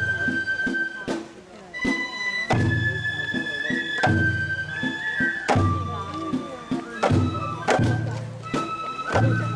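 Japanese festival music played on a high bamboo flute and drum. The flute holds long notes that step from one pitch to another every second or so, over sharp struck beats with a low booming drum.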